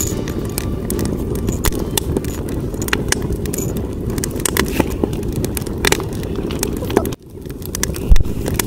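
Wood fire crackling and popping in a fire pit over a steady low rush. About seven seconds in the sound drops out briefly and returns, followed by a single low thump.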